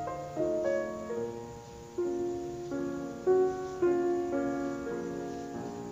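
Background piano music, single notes and chords struck one after another and left to fade.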